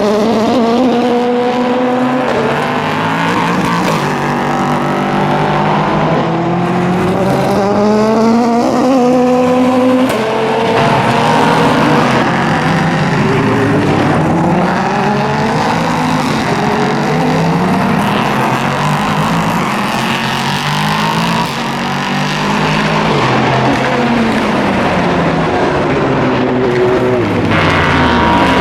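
Endurance race cars' engines running at speed on track. Several overlap, their pitch rising and falling through gear changes and as cars pass by.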